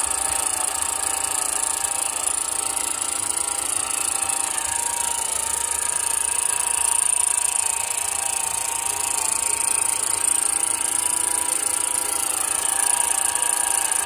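Electric drive motor and 2-speed gearbox of a 6x6 RC truck running steadily at one speed, giving an even whine over a high hiss.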